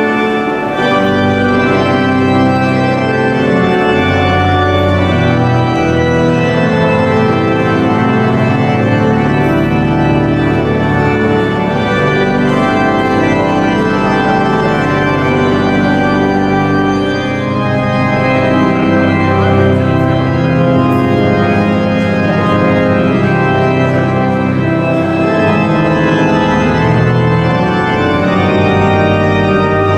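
Church organ playing slow, sustained chords.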